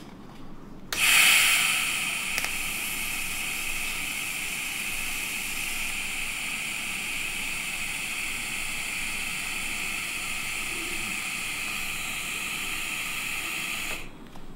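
TIG welding arc on a thin titanium tube, set to 30 amps, laying a tack weld. The arc strikes about a second in, loudest at the strike, then runs as a steady hiss with a high whine until it cuts off near the end.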